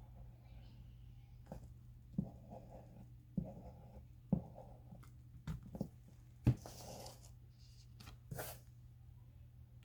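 Paper and craft pieces being handled on a table: scattered light taps and short rustles, over a steady low hum.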